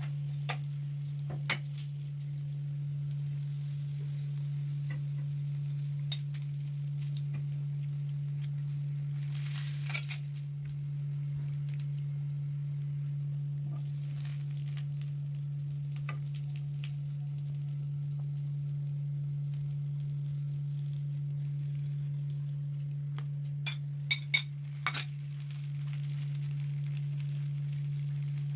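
Potato slices frying in a grill pan, with a faint sizzle and several sharp metal clinks of a spatula and fork against the pan, a quick cluster of them near the end. A steady low hum runs underneath throughout.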